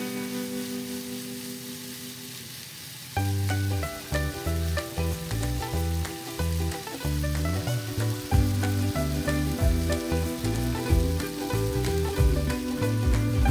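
Beef and onion slices sizzling and frying in a pan, with a steady hiss throughout. Background music plays over it: a held chord fading during the first three seconds, then a tune with a moving bass line from about three seconds in.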